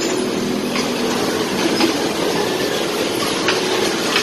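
Electric bumper cars running on the rink floor: a steady rolling rumble with a motor hum and a few faint clicks.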